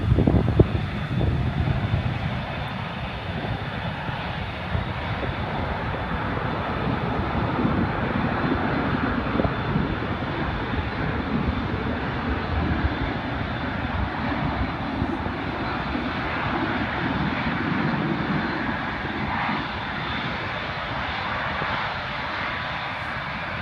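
Jet airliner engines: a steady rushing noise with a faint high whine running through it. Wind rumbles on the microphone in the first second.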